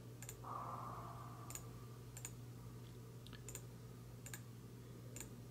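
Scattered light metallic clicks as needle-nose pliers handle a small valve part on the paint pump's metal outlet flange, over a steady low hum.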